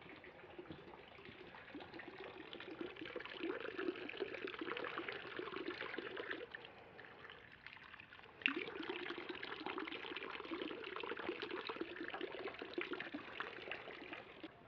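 Water trickling and splashing steadily into a temple's stone purification basin. It drops away about six and a half seconds in and comes back suddenly about two seconds later.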